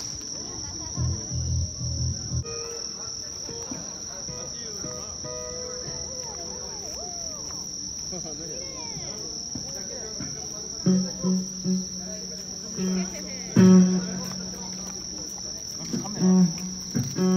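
Crickets trilling steadily at a high pitch. Several short, louder pitched sounds come in the last few seconds, the loudest about three-quarters of the way through.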